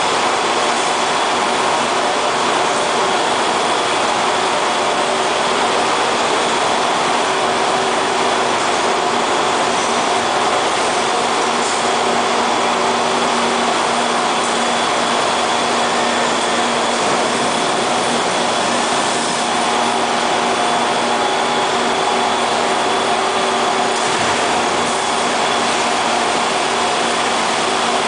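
Steady, unbroken din of a meatball processing line's machinery: wire-mesh conveyors and their drives running continuously, with a few faint steady hums held through it.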